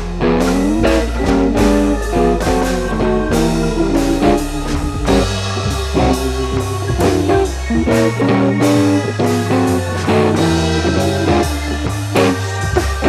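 Background music with guitar and drums, keeping a steady beat.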